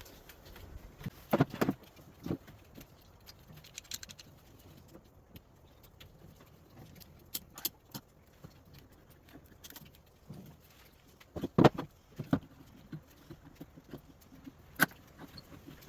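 Scattered knocks and clicks of wooden parts and tools being handled during a glue-up of a cabinet drawer repair, a few louder knocks standing out among light ticks.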